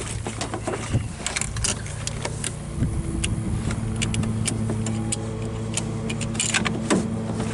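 Vehicle engine idling steadily, with scattered light clicks and knocks over it.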